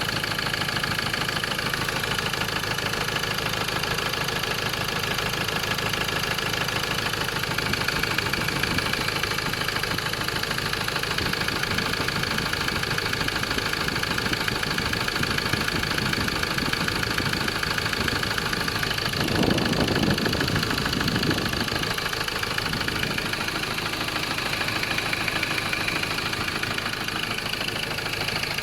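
Ford Ranger 2.2 four-cylinder turbo-diesel idling steadily with an engine knock, briefly louder about twenty seconds in.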